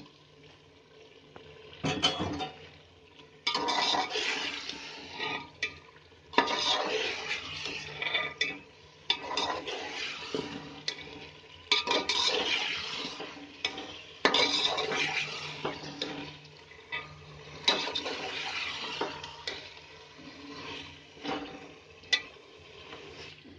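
A metal spoon stirring cubed potatoes into thick tomato masala in a metal pot, scraping and clinking against the pot. It comes in repeated stirring spells of a few seconds each, with short pauses between them.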